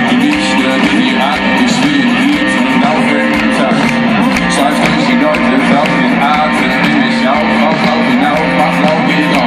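Live rock band playing at full volume through a stage PA, electric guitars prominent over drums and keyboard, heard from within the audience.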